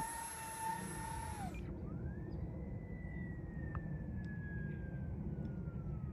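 Electric motors of a twin-motor RC jet whining at a steady pitch, throttled back about a second and a half in with a quick drop in pitch. After that a fainter whine rises and then slowly falls in pitch.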